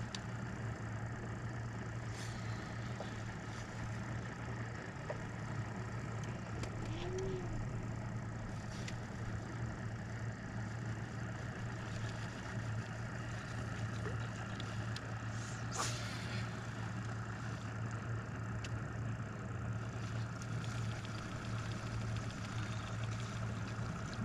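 Steady low hum of a bass boat's electric motor running, with a few faint clicks, the sharpest about sixteen seconds in.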